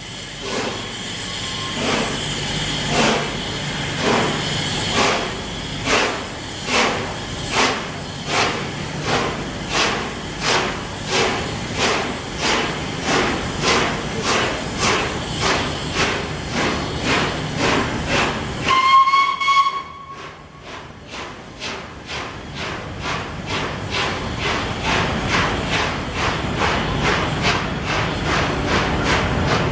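Steam locomotive 60163 Tornado, a three-cylinder Peppercorn A1 Pacific, pulling away with a train: evenly spaced exhaust beats over a steady steam hiss, the beats slowly quickening. About two-thirds of the way through it sounds its whistle once, for about a second.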